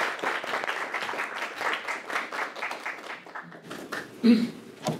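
Audience applauding, the clapping thinning out and dying away about three and a half seconds in. A short, loud bump comes near the end.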